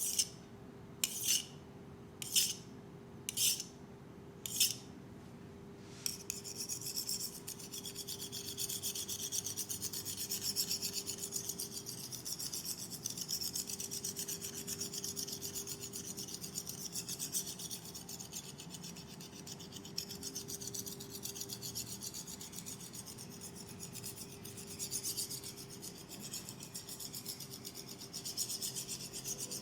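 Hands rubbing briskly over the head during a massage: five short swishes about a second apart, then, about six seconds in, a continuous fast rasping rub.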